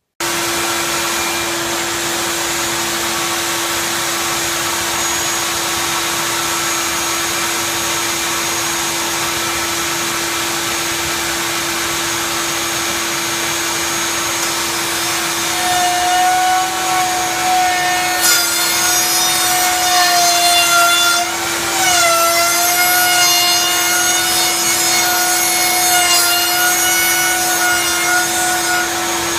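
Router running with a steady high hum. From about halfway through, its straight bit cuts a slot in an oak block, adding a wavering whine that rises and falls with the load and dips briefly about three-quarters of the way through.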